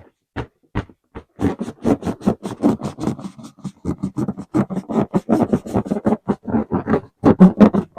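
Inflated rubber balloon being squeezed and rubbed, giving a rapid run of squeaks and scrapes, several a second, loudest near the end.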